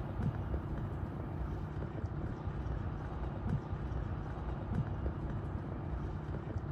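Steady low rumble of wind buffeting the microphone over open water, with a few faint ticks.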